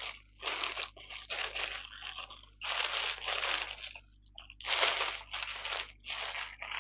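Clear plastic packaging bag crinkling and crackling as it is handled and turned over, in about five bursts with short pauses between them.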